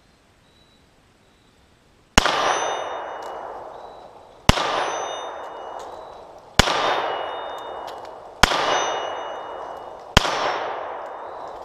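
Glock 43 9mm pistol fired five times in slow, aimed succession about two seconds apart, starting a couple of seconds in. Each sharp crack trails off in a long echo with a brief high ringing.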